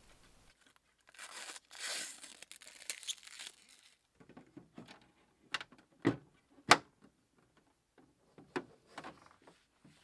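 Packaging crinkling and tearing for about three seconds as it is stripped from the dehumidifier's parts. Then a run of short plastic clicks and knocks, the sharpest about two-thirds of the way through, as the black plastic cord-wrap bracket is fitted to the back of the unit.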